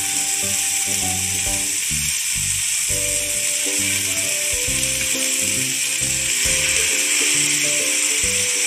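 Hot oil sizzling steadily in a frying pan as pieces of masala-marinated liver are dropped in, over background music.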